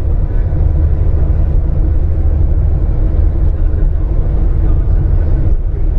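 Steady low road and engine rumble inside a moving car's cabin at highway speed.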